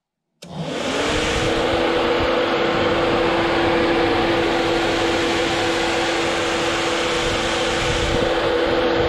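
Flex-A-Lite Flex-Wave electric radiator puller fan switching on and spinning up. It starts suddenly about half a second in, with a hum that rises in pitch over about a second and then runs steadily over a loud rush of air. It has been switched on by turning the thermostat control knob fully counterclockwise.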